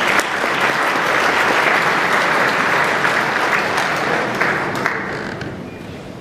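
Audience applause, a dense steady clapping that dies away about five seconds in.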